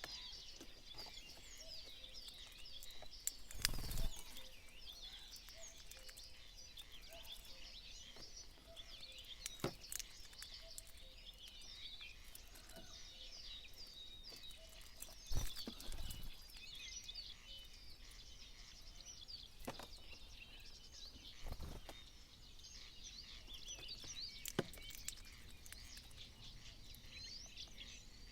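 Many small birds chirping and twittering over one another without a break, with a few sharp knocks and thuds in between, the loudest about halfway through.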